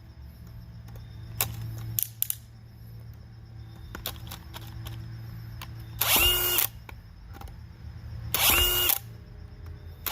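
DeWalt DCD996 cordless drill's motor run in two short trigger pulls, about six and eight and a half seconds in, each lasting about half a second and spinning up to a steady whine. A few light clicks come before them.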